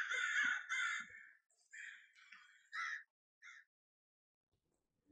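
Crows cawing: a run of harsh, overlapping caws, then a few single caws spaced out that stop about three and a half seconds in.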